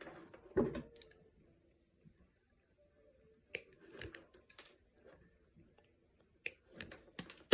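Scattered small clicks and snips of hands and a hand tool working a two-conductor lamp cord, splitting its wires apart. The sharpest click comes about half a second in, with a few more spread out after quiet stretches.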